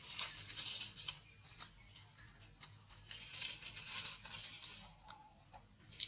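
Dry fallen leaves rustling and crackling as monkeys move over them, in two spells of crackling with sharp snaps, the first at the start and the second a few seconds later.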